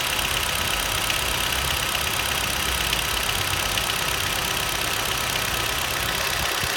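Nissan Juke's 1.6-litre HR16DE four-cylinder petrol engine running at a steady speed, with a fast, light ticking running through it. The owner is chasing an extra knock at around 1000–1200 rpm that the dealer called normal injector ticking.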